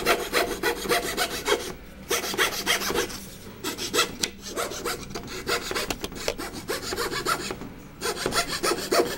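Hand fretsaw with a thin fret blade cutting a thin wooden board in quick, even up-and-down strokes, pausing briefly a few times as the cut is steered around a curve.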